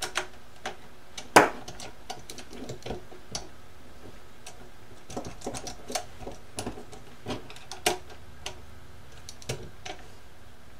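Irregular small clicks and taps of hand tools and metal parts: a screwdriver working a bolt on an aluminium extrusion frame rail while digital calipers are set against it. One sharper click comes about a second and a half in, another near eight seconds.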